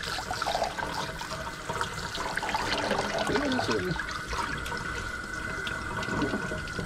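Water from a kitchen sink's pull-out sprayer running over a wet dog's coat and splashing into a stainless steel sink: a steady hiss with a thin high tone running under it.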